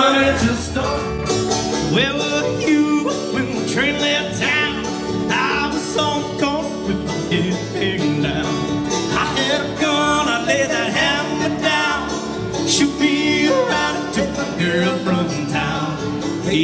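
Live country band music with guitar and a man singing.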